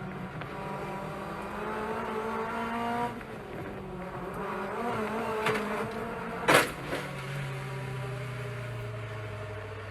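Mazda MX-5 Cup race car's four-cylinder engine revving up under acceleration, dropping sharply about three seconds in and climbing again, then a single loud bang about six and a half seconds in as the car hits the wall. Afterwards the engine falls to a low, steady, slowly sinking drone.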